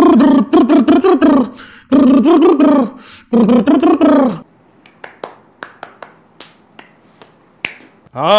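A man's voice makes loud wordless sounds in short pitched phrases for about four seconds. A run of sharp, irregular clicks follows.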